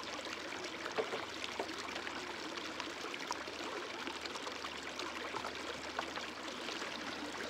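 Shallow creek water running steadily over rocks, with a few light knocks and splashes as gold-prospecting gear is handled in the water.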